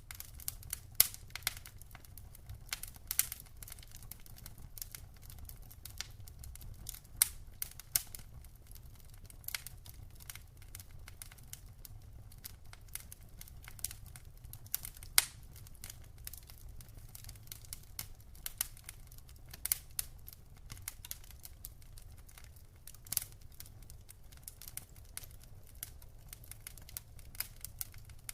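Wood fire burning in a fireplace, crackling with irregular sharp snaps and pops, a few louder than the rest, over a steady low rumble of the flames.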